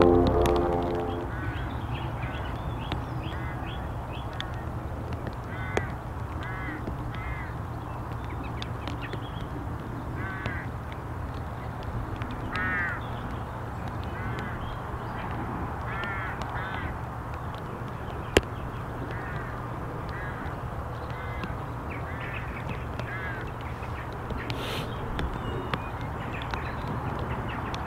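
Outdoor riverbank ambience: birds give short, harsh calls again and again over a steady low rumble, with one sharp click about two-thirds of the way through. A music track fades out in the first second.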